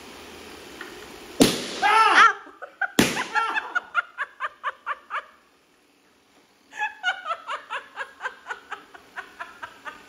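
A balloon bursts with a sharp pop about a second and a half in, followed by a short cry. A second pop comes at about three seconds. Then people laugh in short bursts, with a brief silence near the middle before the laughing resumes.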